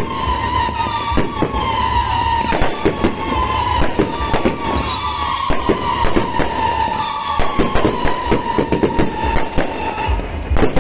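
Aerial fireworks going off in rapid succession, a dense string of sharp bangs and crackles. Behind them a tone glides slowly downward and starts over several times.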